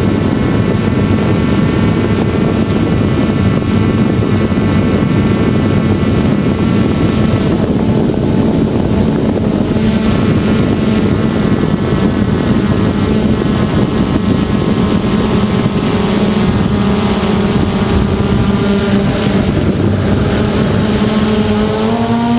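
DJI Phantom quadcopter's motors and propellers running in flight, picked up close by the GoPro camera it carries: a loud, steady buzzing hum with a fixed pitch, shifting slightly right at the end.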